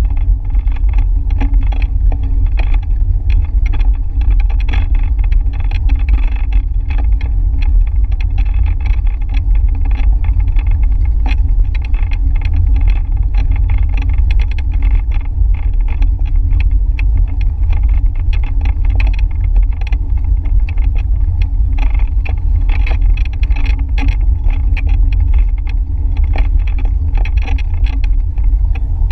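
Steady wind and road rumble on the microphone of a handlebar-mounted camera on a moving bicycle, with frequent small rattles and clicks.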